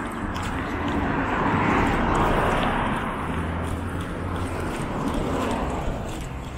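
Road traffic: a passing car's tyre and engine noise swells to a peak about two seconds in and fades, with a lighter swell from another passing vehicle near the end.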